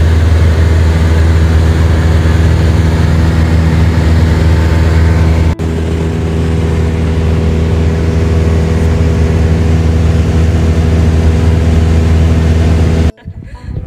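Small propeller airplane's engine droning loudly and steadily, heard from inside the cabin as a deep even hum with overtones. It breaks off for an instant about halfway and cuts off suddenly shortly before the end.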